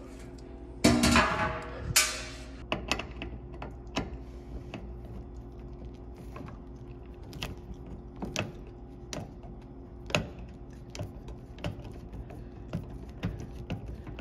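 A cordless drill/driver runs briefly about a second in, then a hand screwdriver clicks and scrapes on the metal screws and terminal block of an electric range's power-cord connection, in scattered sharp ticks.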